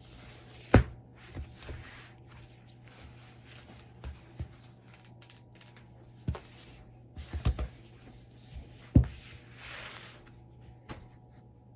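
A paper picture book being handled: a few sharp taps and knocks on its pages, with a short paper rustle about ten seconds in.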